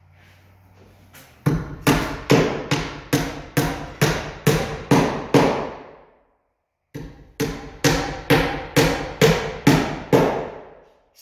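Nails being driven by hand with a hammer through a heavy plywood corner gusset into the shed's timber frame. Two runs of about a dozen sharp, ringing blows each, at about two and a half a second, with a pause of about a second midway.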